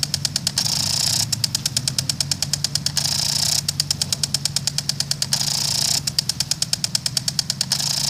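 Melnor impact sprinkler running: its spring-loaded arm clicks rapidly against the water jet, about ten clicks a second, in runs of a second or two broken by short stretches of plain spray hiss.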